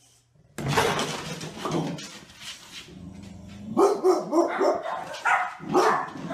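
Dog barking: a rough burst starting about half a second in, then a quick string of short barks, about three a second, from about four seconds in.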